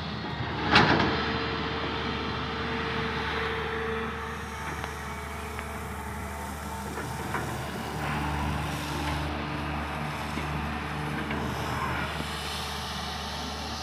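Komatsu PC200 hydraulic excavator's diesel engine running steadily, with one loud bang about a second in. A held whine follows for a few seconds, and the engine note strengthens about eight seconds in as the machine works.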